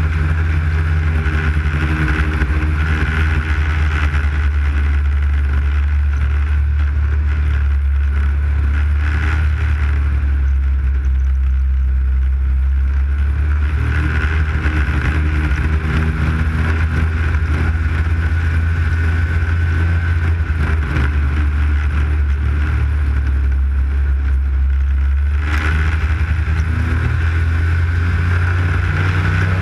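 Arctic Cat snowmobile engine running steadily at trail speed, a loud low drone that eases briefly around the middle of the run.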